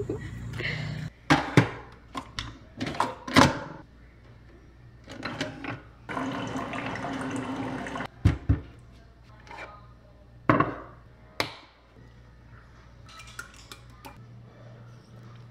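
Single-serve pod coffee maker being used with a ceramic mug: clicks and knocks, a steady hiss for about two seconds as it brews, then a low hum with a few sharp clinks.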